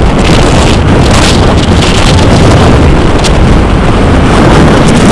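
Loud wind rushing over the microphone from a moving car, a steady rush with a low rumble under it.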